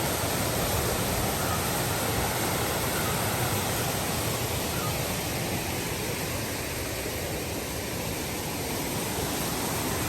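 Waterfall running steadily: an even rush of falling water.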